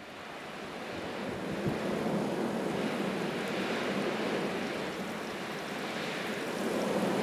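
Blizzard wind blowing hard in long swelling gusts, rising over the first couple of seconds and again near the end.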